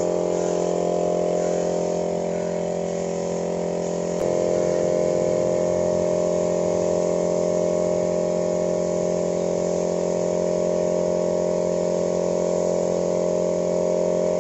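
Air-fed spray gun spraying polish onto wood, with the steady hum of the air compressor that drives it under the hiss of the spray. The sound steps up slightly about four seconds in.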